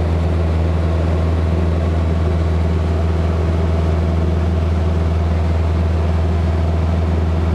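Socata TB-9 Tampico's four-cylinder Lycoming piston engine and propeller droning steadily in flight, heard from inside the cabin as a constant low hum.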